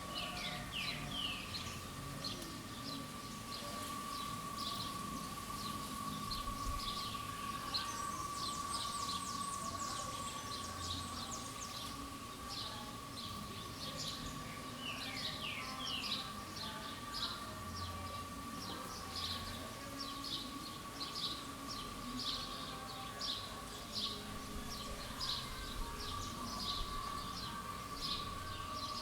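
Outdoor ambience of many birds chirping in short, repeated calls, with a few quick falling whistles and a denser burst of high chattering about a third of the way in. A steady high-pitched tone holds throughout, with faint low rumbles under it.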